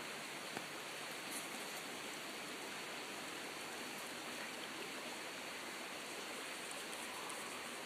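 Steady rushing of flowing stream water, an even wash with no breaks.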